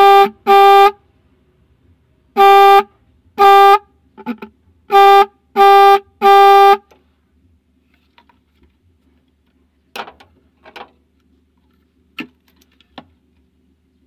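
Electric disc-type car horn giving about seven short honks at one steady pitch over the first seven seconds, then stopping, with only a few light clicks after. The horn had gone completely dead and is sounding again after being serviced with a gasket added inside.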